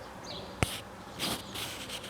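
Insects buzzing in open countryside, with a short falling bird chirp. About half a second in there is one sharp click, and around the middle two brief hissy rustles.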